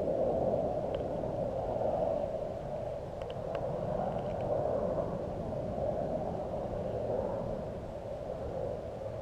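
Steady rushing wind noise on the camera microphone, slowly swelling and easing, with a few faint clicks about a second in and again near three and a half seconds.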